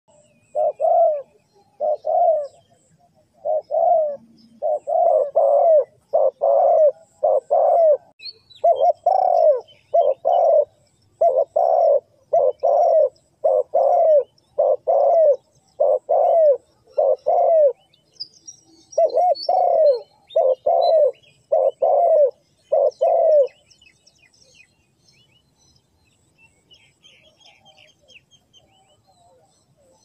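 Spotted dove cooing: a long run of repeated low, arched coos, about two a second, with a short break partway through, stopping several seconds before the end. Small birds chirp faintly in the background.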